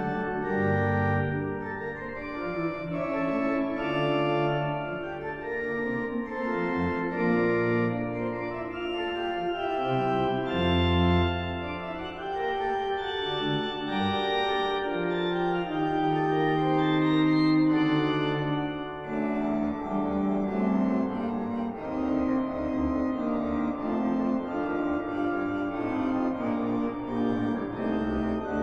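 Church organ playing slow, held chords over low bass notes, with the texture filling out in the upper range about two-thirds of the way through.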